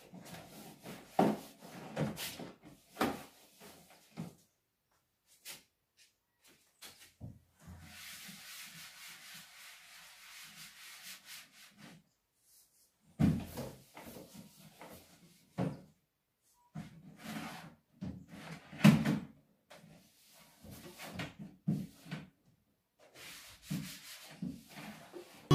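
A cloth wiping the shelves of a wooden TV cabinet, with scattered knocks and clatter as cables, a power strip and an electronic box are moved and set down on the wood. Several seconds of steady rubbing come near the middle.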